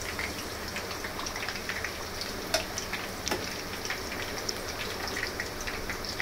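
Kuttu (buckwheat flour) pakoras deep-frying in hot refined oil: steady sizzling with scattered crackles and a few louder pops.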